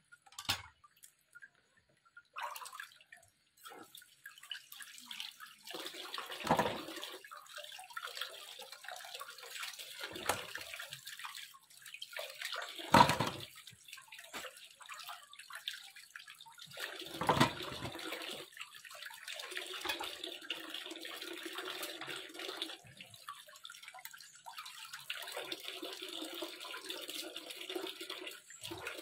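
Water splashing and sloshing as peeled cassava roots are washed by hand in a plastic basin, with several short, louder splashes and knocks as roots are handled and set into a metal pot. In the last third a stream of water runs steadily into the basin, pausing once.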